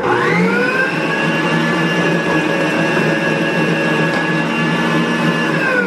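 Stand mixer's motor spinning up to speed with a rising whine, running steadily as its wire whisk beats a honey, egg and sugar batter, then winding down near the end as it is switched off.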